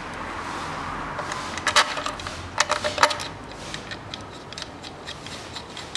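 Light metallic clicks and taps as the metal CVT oil filter is set against the transmission valve body and its small bolts are started by hand. The sharpest clicks come about two and three seconds in, followed by scattered lighter ticks.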